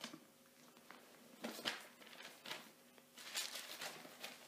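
Thin Bible pages being leafed through: a few faint paper rustles and crinkles, the longest near the end.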